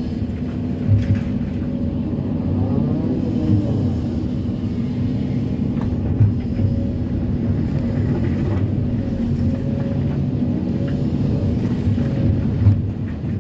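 Kobelco SK330-10 crawler excavator's diesel engine running steadily under working load, with a whine that rises and falls as the boom and bucket move. A few short knocks of rock against the steel bucket as it scoops broken rock and earth.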